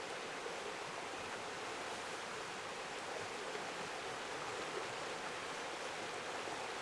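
Steady rush of a river's shallow rapids running between fallen logs.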